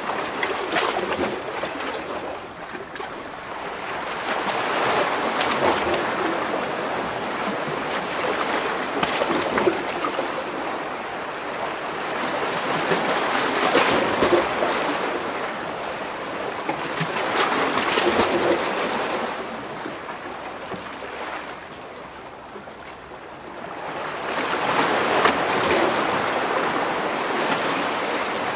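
Waves washing in between rocks, close up: the water surges in and drains back in slow swells every several seconds, with splashing and gurgling as it breaks against the stone.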